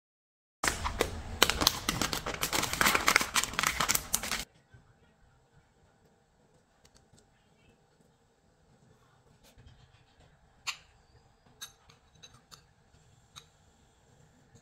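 A knife cuts through a burnt cheesecake's crust and the baking paper beneath it, making a dense, crackly scrape for about four seconds that stops abruptly. After that it is quiet, apart from a few light clicks of cutlery near the end.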